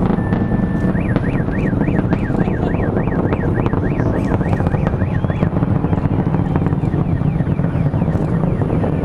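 Low rumble of the Falcon Heavy's 27 Merlin engines heard from miles away. A car alarm set off by it sounds over the rumble: a short steady tone, then a fast rising-and-falling wail from about a second in, stopping a little past halfway.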